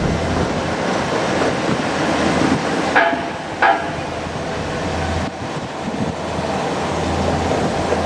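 JR Kyushu KiHa 200 diesel railcar running by with a steady rumble of engine and wheels on rail. Two short, sharp ringing sounds come about half a second apart, a third of the way in.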